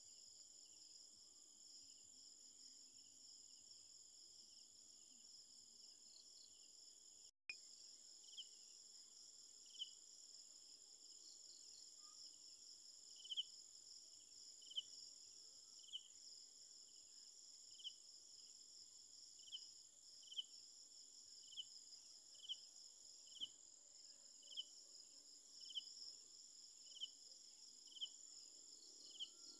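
Faint night insect chorus: a steady high-pitched trill of crickets, with a separate short chirp repeating about once a second from about eight seconds in. The sound cuts out for an instant about seven seconds in.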